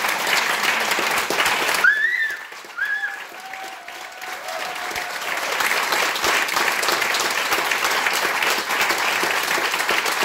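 Audience applauding, a dense patter of many hands clapping. The applause drops briefly about two seconds in, with a few short high calls, then swells back to full clapping.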